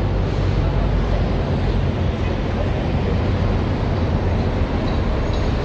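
Steady road traffic noise: a continuous low rumble of passing vehicles with a hiss above it.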